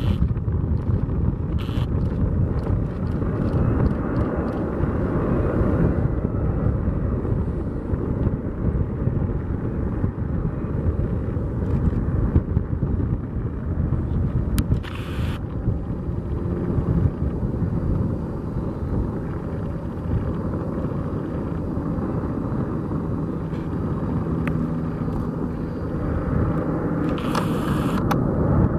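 Boeing 767-200 freighter's jet engines making a steady, dense rumble as it comes in on final approach to land.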